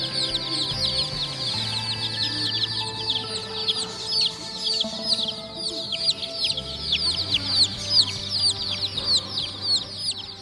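A large crowd of domestic chicken chicks peeping all together, a dense, unbroken chorus of short high peeps that each slide downward in pitch. Background music with long held notes runs underneath.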